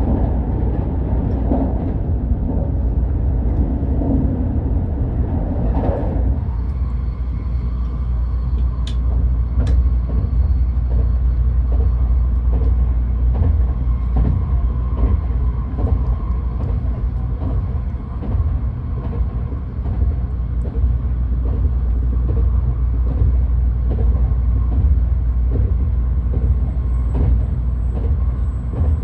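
Tokaido Shinkansen train running at speed, heard from inside the passenger cabin: a steady low rumble, with a louder rushing sound in the first six seconds that drops off suddenly.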